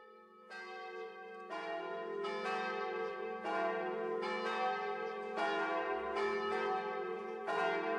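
Bells ringing, a new stroke about once a second, each note ringing on and overlapping the next over a steady low hum. The sound swells over the first couple of seconds.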